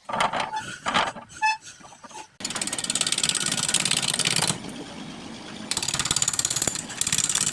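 Woodturning gouge cutting a spinning wood blank on a lathe: a fast, even rhythmic clatter that starts a couple of seconds in, stops for about a second and starts again, after a few scattered knocks.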